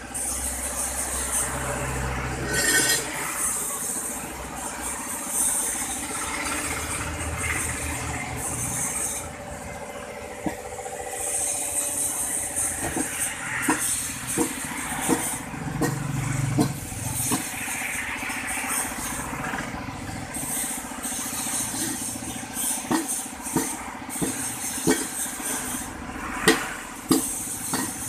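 Sharp hammer blows and metal clinks as a small tyre is worked onto its steel wheel rim with a sledgehammer and tyre lever. The blows begin about a third of the way in and come thicker near the end, over a low vehicle engine rumble in the first seconds.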